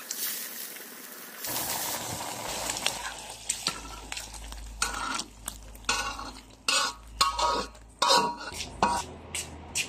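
Boiling wok hissing, then a metal ladle repeatedly clinking and scraping against the wok and a stainless-steel bowl as tofu stew is scooped out, with liquid splashing.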